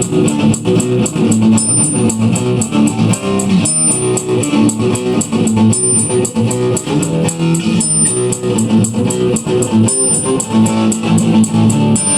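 Guitar-led music with bass and drums keeping a steady beat.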